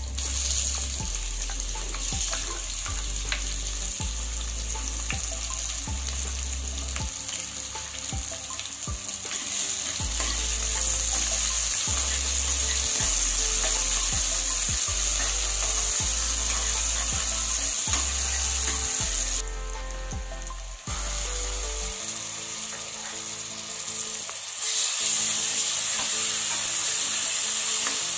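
Sliced onions sizzling in hot oil in an open pressure cooker, with a steel spoon clicking and scraping against the pan as they are stirred. The sizzle drops out briefly about two-thirds through, then returns louder near the end.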